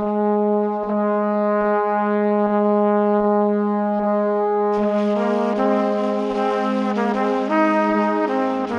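Background music: one long held low note over a soft steady beat, with a melody of higher, shifting notes joining about halfway through.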